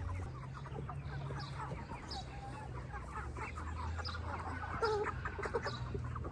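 A flock of Cornish Cross meat chickens clucking and chirping in many short, overlapping calls, over a steady low hum.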